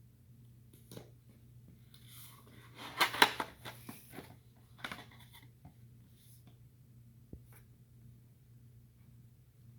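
Lock packaging being handled and opened: a cluster of rustling and clicks about two to four seconds in, then a few scattered clicks, over a low steady hum.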